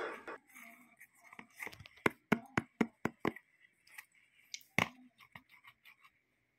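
Clear plastic tub of 'crystal mud' slime being squeezed and handled: a string of irregular sharp clicks and taps, the loudest about two thirds of the way in.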